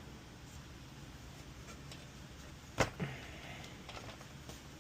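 Low steady room hum with one sharp knock about three seconds in and a brief rattle just after it, as objects on a workbench are moved about in a search.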